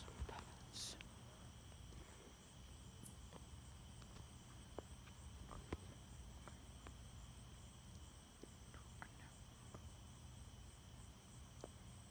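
Crickets and other night insects trilling steadily in several high, even tones, with a few faint scattered clicks.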